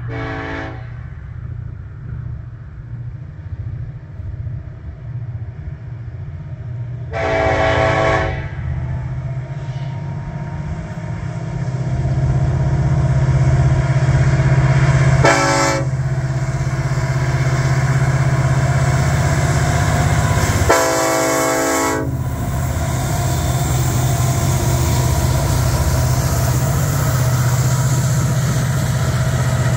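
Six EMD SD70ACE diesel-electric locomotives pulling a freight train upgrade, their engines' low drone growing louder as they come near and pass. The lead unit's air horn sounds four times: briefly at the start, a long blast about seven seconds in, a short one about fifteen seconds in, and a last blast around twenty-one seconds.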